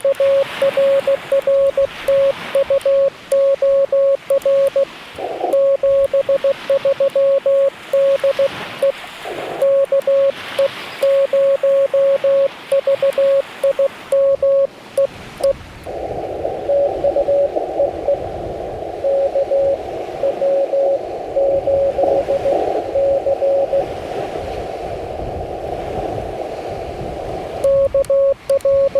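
Morse code from a Yaesu FT-891 HF transceiver: a single clear tone keyed on and off in dots and dashes. About halfway through it gives way to the receiver's narrow band of hiss with another station's fainter Morse in it. The clear keyed tone returns near the end.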